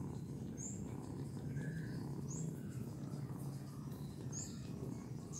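Kitten purring steadily, a low rumble, while it nuzzles into a towel for comfort. Four short, high chirps sound over it.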